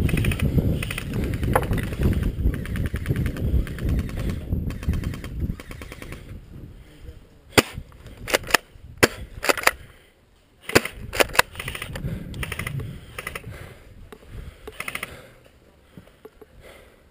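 Airsoft guns firing: fast rattling bursts at first, under a heavy low rumble on the microphone, then a run of sharp single cracks a little after halfway, and more bursts after that.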